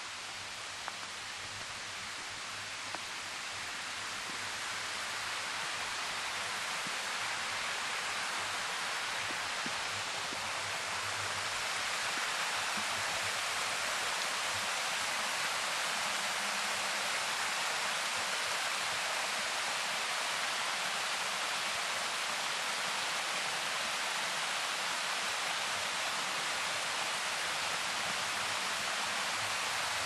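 Small mountain waterfall rushing down a rock face: a steady, even rush of water that grows louder over the first dozen seconds, then holds. Two faint clicks near the start.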